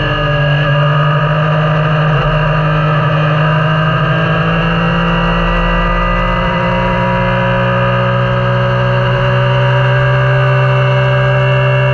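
Yamaha Niken's inline three-cylinder engine pulling steadily under load, its pitch rising slowly as the bike gathers speed.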